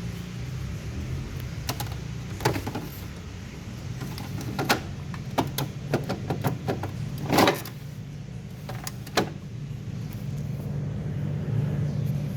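A few sharp knocks and clicks, the loudest about seven seconds in with a short rattle, over a steady low hum.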